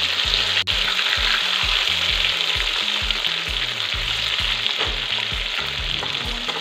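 Marinated rohu fish pieces frying in hot oil in a kadai, a steady dense sizzle, while a metal spatula turns the pieces over once they are golden on one side. The sizzle briefly drops out about half a second in.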